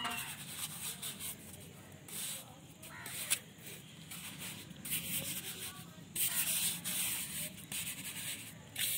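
Steel mason's trowel scraping and spreading a bed of mortar over the top of a brick course, in a series of short gritty strokes, the longest and loudest about six to seven seconds in.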